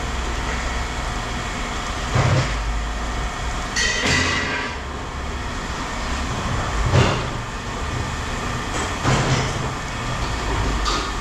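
Scrap metal clanking and scraping, several separate knocks over a steady rumble of heavy machinery, with a brief metallic squeal about four seconds in.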